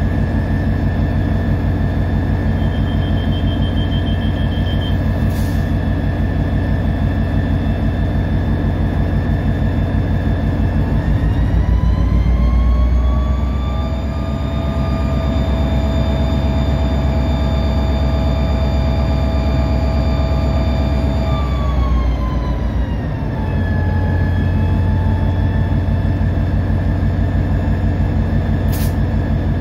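EMD SD40-2 locomotive's turbocharged two-stroke V16 diesel running under load. Its engine speed rises about eleven seconds in, holds higher for about ten seconds, then drops back down.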